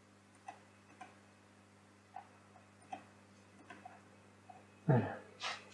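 Soft computer mouse clicks, about five spread out, over a steady low electrical hum, with one louder short noise near the end.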